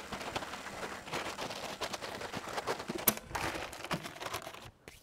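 Plastic tarp rustling and crinkling as it is spread over the back of the vehicle, with a sharp tap about three seconds in. The rustling dies away near the end.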